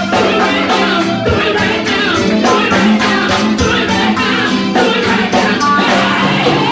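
Loud church music: a voice singing over a band, with a steady low note held underneath.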